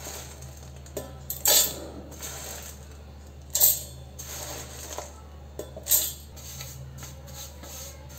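Roasted whole spices (black peppercorns, cardamom pods, cinnamon sticks, dry ginger and nutmeg pieces) are tipped from a steel pan into a stainless steel mixer-grinder jar, rattling and clinking on the metal in several short bursts. A steady low hum runs underneath.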